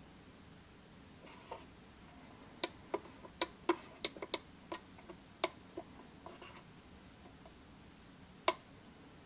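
Push buttons on a PMV D30 digital valve positioner's keypad clicking as they are pressed. There is a quick, irregular run of about a dozen clicks starting under three seconds in, then a single click near the end.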